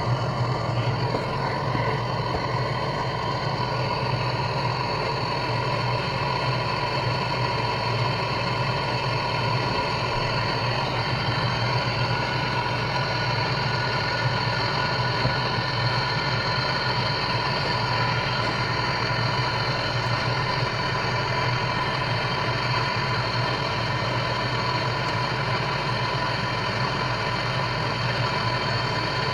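Electric heat gun running steadily: a fan blowing with a constant motor whine, heating a seized part of the washing machine to free it.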